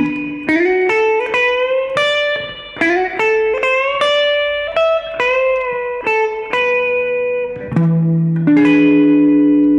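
Fender Stratocaster-type electric guitar playing a slow blues lick: picked single notes with slides and bends, then a chord struck near the end and left ringing.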